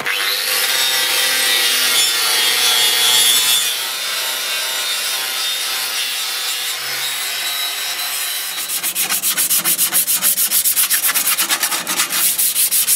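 Power tool spinning a synthetic scouring pad against a boat propeller, a steady abrasive whine and hiss that cleans the prop ready for antifouling. About eight seconds in it gives way to quick back-and-forth hand rubbing with sandpaper on the blades, several strokes a second.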